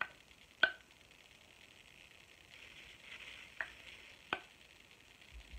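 Plastic loose-powder jar with a sifter lid being shaken and tapped: four sharp plastic clicks, the loudest about half a second in, with a faint rustle of the powder shaking between them.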